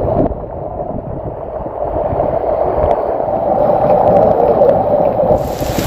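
Strong gusting wind rumbling and buffeting against the microphone, muffling everything else. Near the end, the hiss of heavy rain comes through.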